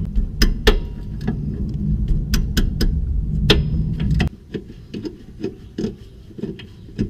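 Sharp metallic clicks and clinks of tools and brake hardware being handled while the caliper bracket bolt is taken out. They come over a steady low rumble that stops abruptly about four seconds in.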